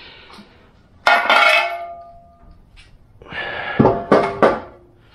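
Metal parts clinking and clanking as they are handled: one sharp clink about a second in that rings on briefly, then a quick run of knocks and clinks with short ringing tones between about three and four and a half seconds in.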